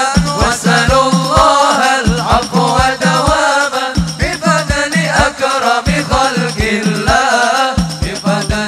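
Sholawat devotional singing, a melodic sung chant, over a steady low drumbeat of about three to four strokes a second.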